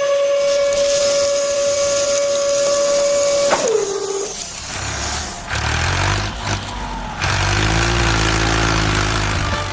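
A small motor whines at a steady pitch, then winds down with a falling pitch about three and a half seconds in. A low engine rumble follows from about five and a half seconds.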